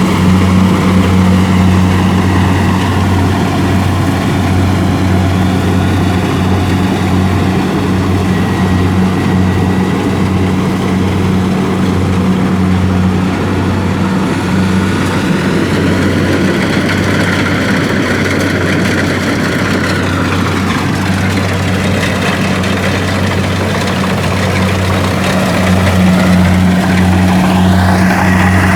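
Kubota DC-70 rice combine harvester's diesel engine running steadily under load. Its pitch sags about two-thirds of the way through and climbs again near the end.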